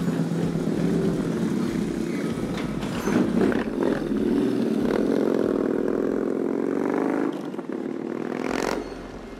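Custom Yamaha Bolt XV950 cafe racer's air-cooled V-twin running on an SC-Project exhaust, its note changing as it is ridden, steadiest and strongest a little past the middle. It stops abruptly near the end.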